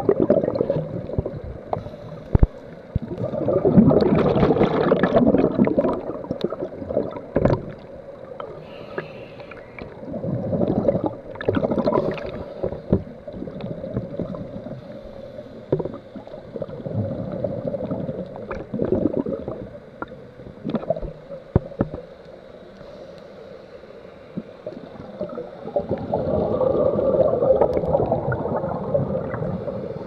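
Scuba diver's exhaled bubbles gurgling out of a regulator close to an underwater camera, in bursts every several seconds with each out-breath, quieter between. A few sharp clicks stand out between the bursts.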